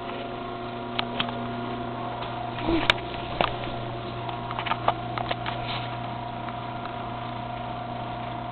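Craftsman ½-horsepower belt-drive garage door opener running as the door opens: a steady motor hum with scattered clicks and rattles.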